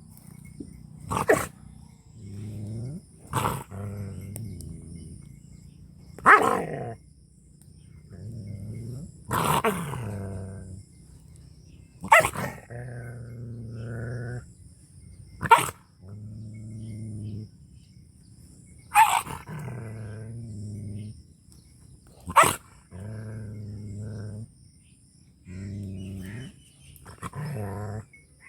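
A dog barking sharply about every three seconds, with low growls between the barks.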